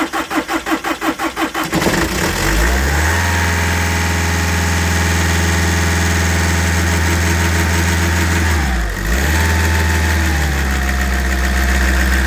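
Volkswagen T5's 2.0 TDI four-cylinder diesel cranking on the starter in rapid, even pulses, then catching about two seconds in and running steadily, its throttle held at a fast idle. This is its first start after the injectors were refitted and the fuel lines bled. About nine seconds in the engine speed dips briefly and recovers, then settles a little lower.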